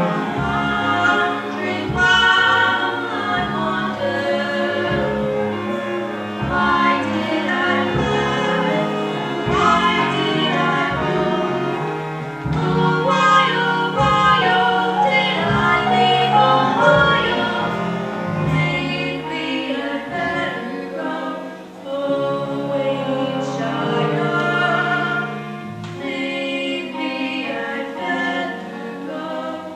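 Two female voices singing a musical-theatre duet with instrumental accompaniment.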